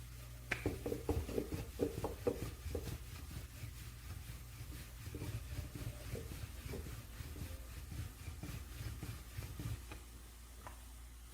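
Rolling pin working chapati dough on a board: a quick run of soft knocks, then slower rubbing and knocking that dies away near the end.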